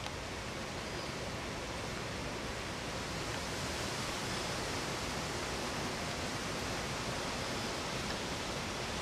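Steady, even rushing noise with no distinct events, growing slightly louder over the seconds: outdoor ambience.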